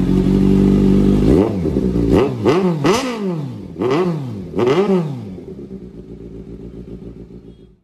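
Motorcycle engine idling, then revved in about six quick throttle blips, the pitch rising and falling with each. The sound then dies away and cuts off near the end.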